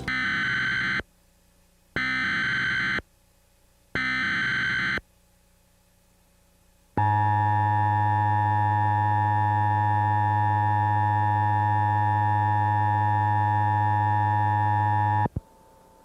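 Emergency Alert System activation tones: three one-second bursts of SAME digital header data, about a second apart, then the EAS two-tone attention signal (853 and 960 Hz) held steady for about eight seconds and cutting off suddenly. The tones announce a National Weather Service severe thunderstorm warning.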